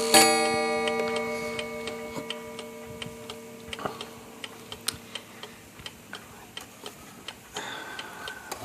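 1881 Ansonia open-escapement marble mantel clock striking the hour. Its last blow comes right at the start and rings away over several seconds, while the open escapement ticks steadily.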